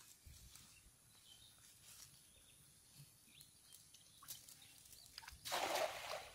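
Cast net landing on a pond: a brief rush of splashing near the end as its weighted rim hits the water all at once.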